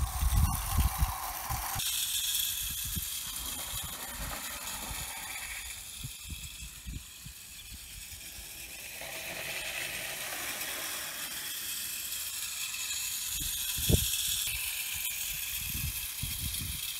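Hornby clockwork tinplate trains running on 0 gauge track, the wound-up spring motor whirring and the wheels rattling over the rails, with irregular low thumps and a sharp knock about fourteen seconds in.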